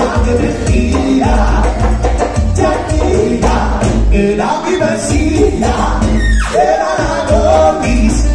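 Live Latin tropical dance band playing over a steady bass beat, with congas, timbales and trumpet, and a male singer singing.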